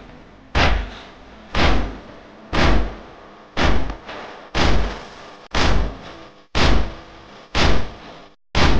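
Matam, rhythmic chest-beating for a noha: loud thumps evenly spaced about once a second, with no voice over them. A brief break in the sound comes just before the last stroke.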